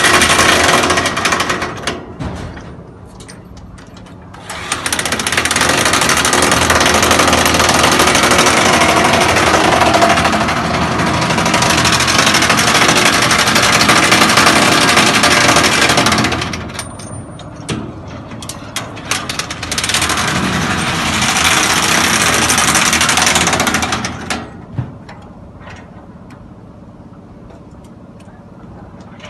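Impact wrench hammering on M25 (1-inch) structural bolts in three bursts: a short one at the start, a long one of about twelve seconds, then a shorter one of about four seconds. A steady low hum fills the quieter gaps between bursts.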